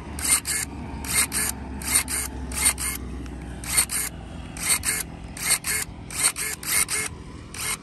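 Battery-powered electric pruning shears snipping leafy stems again and again, about nine cuts in a row, a little under a second apart. Each cut is a quick double whir from the motor.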